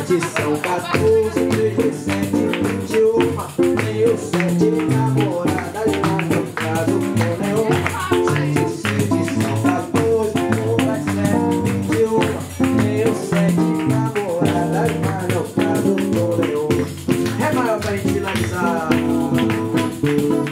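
Live acoustic band music: guitar playing over hand percussion in a steady dance rhythm.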